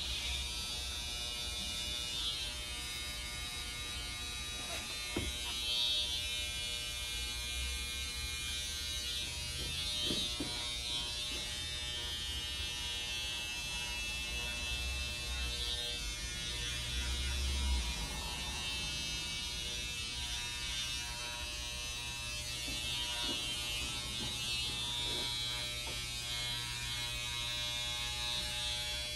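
Electric hair clipper buzzing steadily as it trims a beard, with a few faint clicks along the way.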